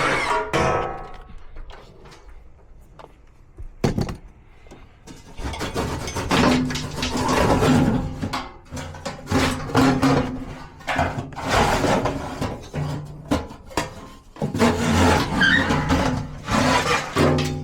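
Tools knocking and scraping on the sheet-metal furnace cabinet and blower housing as a furnace blower motor is worked loose, with runs of steady low mechanical hum mixed in.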